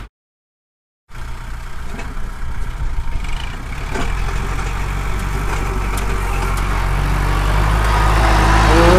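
Kubota L5018 50-horsepower diesel tractor running under load as its front dozer blade pushes soil to level a rice paddy. The sound cuts in after about a second of silence and grows louder from about four seconds in.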